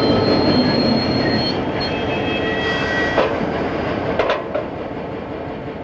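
CSX diesel helper locomotives rolling slowly past on the track, their wheel flanges squealing in several high steady tones over the rumble of the wheels, the sound fading as they move off. A few short metallic clanks come near the end as the hand-thrown switch stand is worked.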